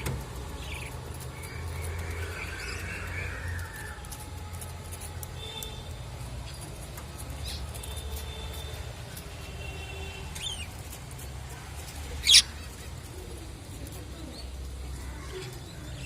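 Budgerigars chirping now and then in short calls, with one loud, sharp rising chirp about twelve seconds in, over a steady low hum.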